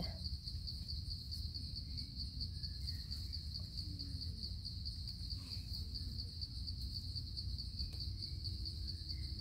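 Insect chorus in the forest: a steady, high-pitched trill with a fast even pulse, unbroken throughout.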